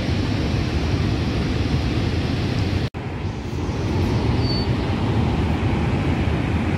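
Steady rushing roar of Niagara Falls, the water crashing down heavily, broken by a momentary dropout in the sound about three seconds in.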